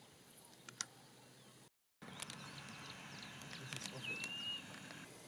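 Quiet bush ambience with scattered high bird chirps and ticks. About four seconds in, one short whistled bird note rises slightly and then holds. The sound cuts out for a moment just before two seconds in.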